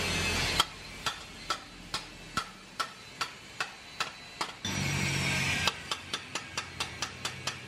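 Ratchet wrench clicking at an even pace as a bolt is run into a motorcycle engine-mount bracket, about two to three clicks a second, then faster, about four a second, near the end. A steady whirring breaks in for about a second around five seconds in.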